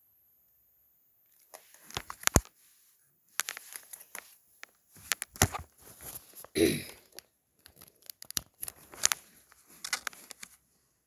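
Flip phones being handled: irregular plastic clicks, knocks and rustling, with one brief louder sound that falls in pitch about six and a half seconds in.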